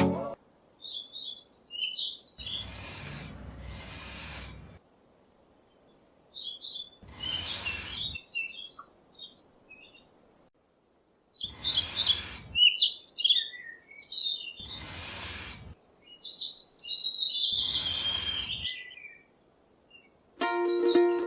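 Small birds chirping in short high twittering phrases, with five separate rasping strokes about a second long each, set apart by brief silences.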